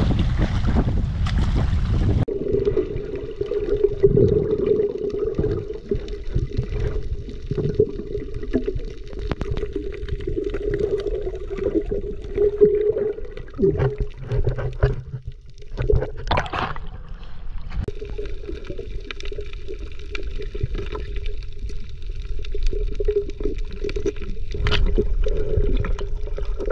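Wind and waves for about two seconds, then the sound turns suddenly muffled as the microphone goes underwater: water gurgling and bubbling with scattered clicks over a steady hum.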